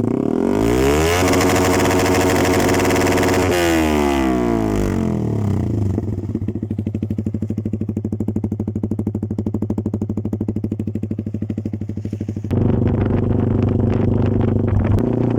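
Yamaha R15 V3's 155 cc single-cylinder engine through an aftermarket M4 exhaust, revved once: the revs climb for about a second, hold, then drop back to a steady idle. Near the end the idle abruptly turns louder.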